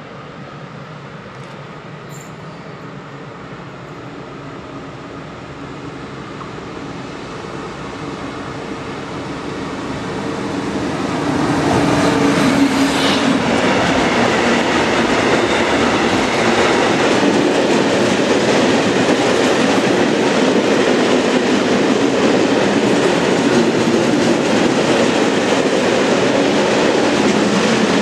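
Freight train of tank wagons approaching and passing close by: its sound grows steadily louder over the first ten seconds or so, then settles into the loud, steady rolling noise of the wagons' wheels on the rails.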